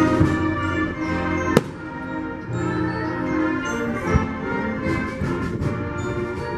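Orchestral music with brass plays steadily while firework shells burst: a sharp bang about one and a half seconds in, a duller thump around four seconds in, and another sharp bang at the very end.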